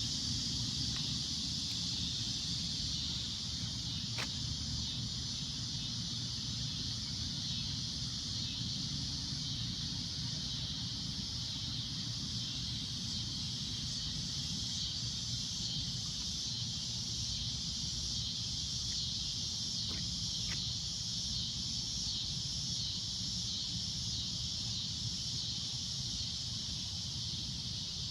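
Cicadas droning: a steady, shrill buzz that holds without a break, with a low rumble underneath.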